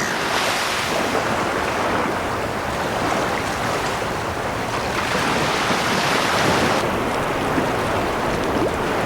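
Ocean surf washing onto a beach, swelling and easing every few seconds, with wind on the microphone.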